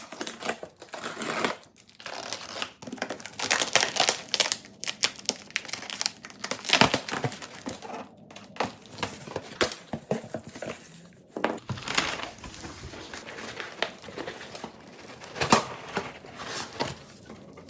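A shipping box being unpacked by hand: packing material crinkling and tearing, with cardboard rustling and knocking in irregular bursts.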